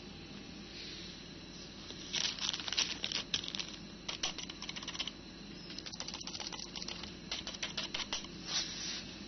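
Keys of a compact wireless keyboard being pressed in two quick runs of clicking, the first starting about two seconds in and the second after a short pause.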